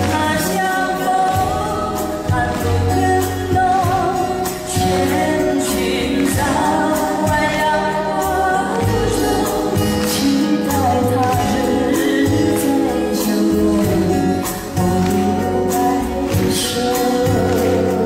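A woman singing a Mandarin ballad live into a microphone, with band accompaniment.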